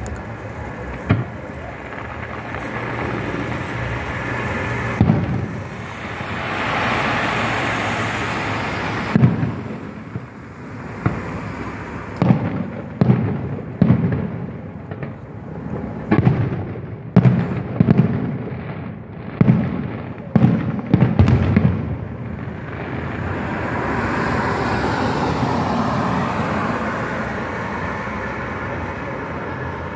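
Aerial fireworks bursting: a few single booms in the first seconds, then a rapid string of about a dozen bangs through the middle, with a steady hiss between the volleys.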